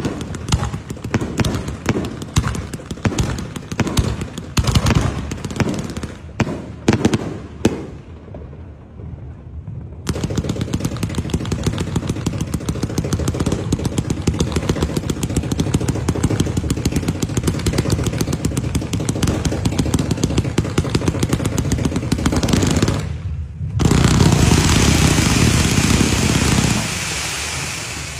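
Fireworks and firecrackers going off: many sharp bangs in quick succession, then a dense, rapid crackle like a long string of firecrackers, which grows louder for a few seconds near the end.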